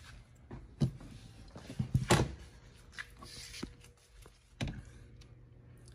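A few short knocks and clicks of a Harley-Davidson touring saddlebag's hard lid and latch being handled as the bag is opened, the loudest about two seconds in.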